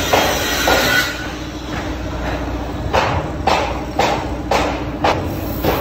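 Hammer blows, about two a second, six in a row starting about halfway in, inside a road tunnel under construction. A steady machine hum runs underneath.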